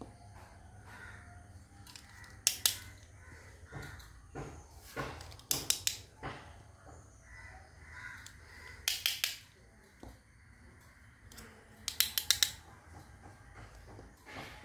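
Plastic toy cutlery clicking and tapping as pieces knock together in the hand and are set down on a tabletop mat, in short clusters of sharp clicks every few seconds.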